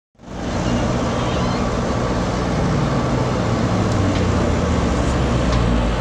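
Heavy diesel engines of earthmoving machinery running steadily, coming in from silence a moment after the start.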